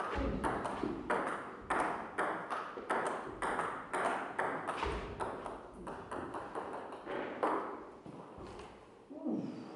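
Table tennis rally: the light ball clicking off bats and table about three times a second. The rally stops about seven and a half seconds in.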